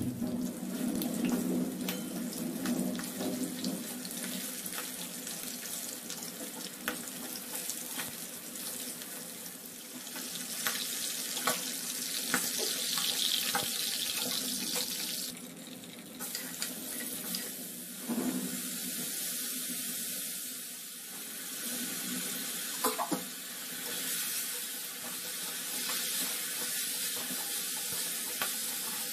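Chicken drumsticks frying in hot oil in a wok, a steady sizzle, with occasional sharp clicks from a spatula against the pan.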